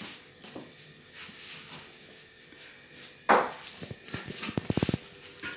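A dog gnawing and crunching on a bone. There is a sudden louder noise about three seconds in, then a quick run of crunching clicks near the end.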